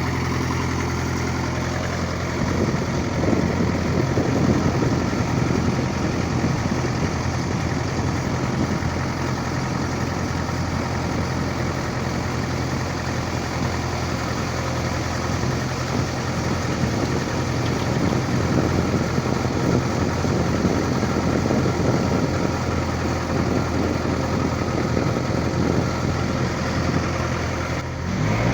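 Engine of an old work vehicle running steadily with a low hum. A rougher, rattling rumble joins in about two seconds in as it moves along.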